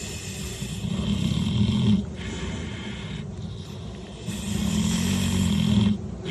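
A sleeping pig snoring: two long, loud, low rasping snores about two seconds apart in onset, each cutting off abruptly, with quieter breathing between them.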